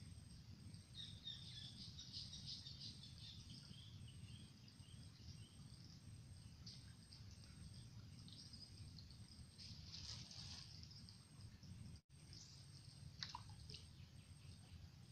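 Near silence: faint outdoor ambience, a low steady rumble with scattered faint high chirps, a run of them in the first few seconds and a few more later.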